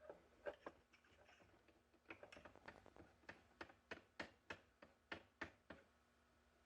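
Faint, irregular light clicks and taps of hands handling a rifle bolt and its jeweling fixture, over a faint steady hum.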